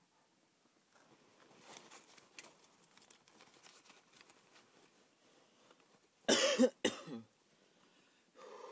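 A person coughs hard twice, about six seconds in, after taking a bong hit. Before that there is a stretch of faint, irregular crackling from a homemade glass-jar bong as the smoke is drawn through it. A short hoarse sound follows near the end.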